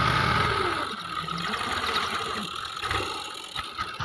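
Fiat 480 tractor's three-cylinder diesel engine running under load while its blade pushes soil, with a steady high whine. It is loudest for the first second, then eases.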